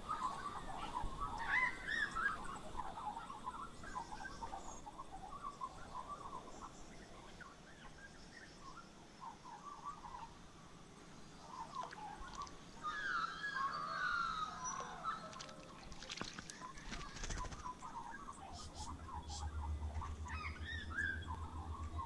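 Wild birds chirping and whistling in short, varied calls, busiest a little past halfway. A few sharp clicks come about three-quarters of the way through, and a low hum starts near the end.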